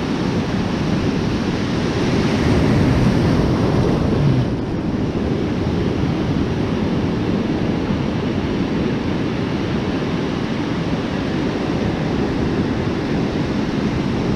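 Ocean surf washing onto a shallow beach, with wind buffeting the microphone. The surf swells louder for a couple of seconds about two seconds in, then settles to a steady wash.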